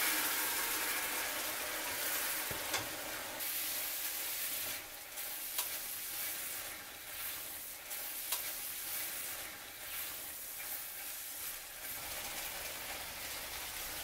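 Green peas and onion-tomato masala sizzling in a hot metal pan while being stirred with a wooden spatula, with a few sharp clicks along the way. The sizzle is loudest at the start and eases off a little.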